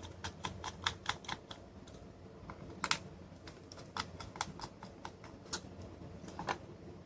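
Light, irregular clicks and taps of a small screwdriver and a plastic case as tiny screws are worked out of a USB Ethernet adapter's housing, some in quick runs and some single.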